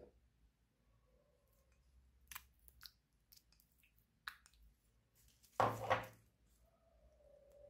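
Clear slime being handled with bare fingers: a few faint sticky clicks and crackles as it is pressed in a plastic dish. Late on, a louder wet squelch lasting about half a second as the slime is pulled out of the dish.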